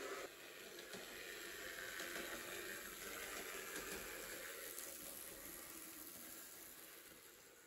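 009 narrow-gauge model steam locomotive and its short train running along the track with a steady hissing running noise that fades away near the end.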